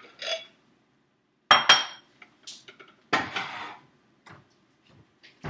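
Ceramic pasta bowls clinking sharply twice, with a brief ring, as one is taken off a stack. About a second later comes a longer clatter as a bowl is set down on a granite countertop.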